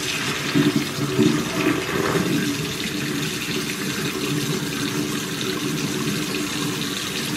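Kitchen faucet running into a stainless steel sink while hot pasta water is poured off from a pot of spaghetti into the same sink: a steady rush of running water, with louder splashing in the first couple of seconds.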